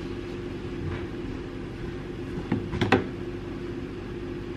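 Steady low hum with a few short knocks and handling sounds about two and a half to three seconds in, as a laptop is taken from a pantry shelf and handled.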